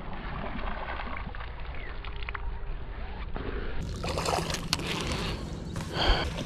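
A frog bait drawn across shallow marsh water on a fishing line: soft sloshing and rippling at the surface, with small clicks and a brief louder burst about six seconds in.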